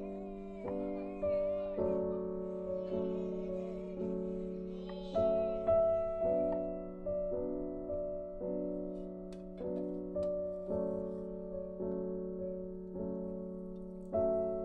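Background piano music: soft, gently decaying chords struck evenly, about two a second.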